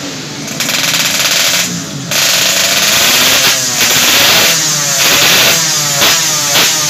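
Race-tuned motorcycle engine running loudly and being blipped repeatedly, with quick rises and falls in revs about twice a second in the second half.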